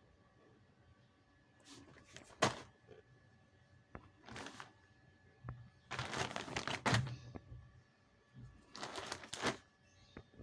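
Packaging being handled and opened: four short bursts of rustling and crinkling with sharp clicks and knocks, the longest about six seconds in.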